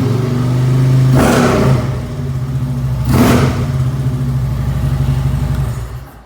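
Harley-Davidson Ultra Limited's V-twin idling through Cobra Power Port dual exhaust with slip-on mufflers, with two quick throttle blips about a second and three seconds in, then shut off near the end.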